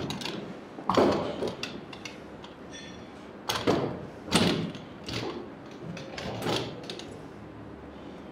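Clunks and scrapes of a light-alloy rear motorcycle paddock stand being set under the swingarm and shifted on its small wheels. Several separate knocks, the loudest between about three and a half and four and a half seconds in.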